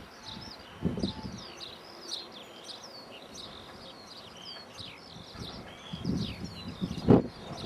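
Many small birds chirping and singing. Gusts of strong wind buffet the microphone now and then, and a sharp thump comes near the end.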